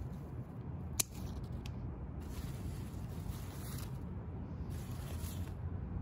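Steady low rumble of city traffic, with a sharp click about a second in and a fainter one soon after, and several second-long bursts of hissing.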